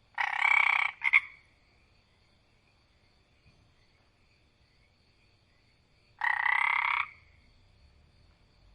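Frog croaking: a long rasping croak with a short one right after it, then another long croak about five seconds later. A faint steady high-pitched background runs underneath.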